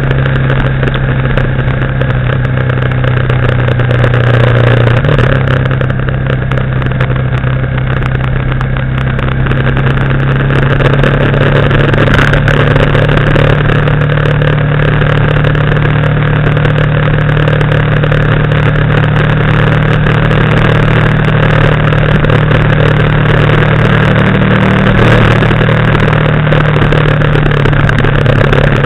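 Engine of the recording vehicle running steadily at cruising speed, with road and wind noise, heard from on board. The engine note shifts slightly about five seconds in and again a few seconds before the end.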